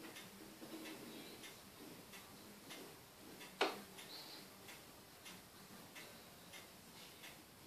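Faint, steady ticking, about two ticks a second. About three and a half seconds in comes one sharper click as the stylus taps down on the drawing tablet.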